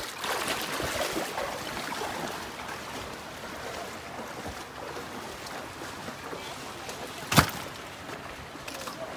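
Water sloshing and splashing around a wet bamboo boat deck, a steady wash of noise, with one sharp knock about seven seconds in that is the loudest sound.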